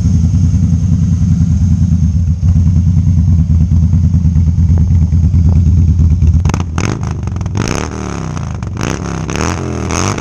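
Harley-Davidson V-twin motorcycle engine running close by with a steady, pulsing low note; about six and a half seconds in it gets quieter and its pitch rises and falls several times as the engine is revved.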